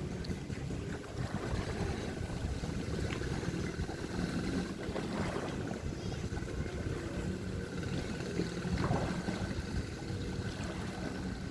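Seaside ambience: a steady low rumble of wind and surf, with a faint motor hum running under it.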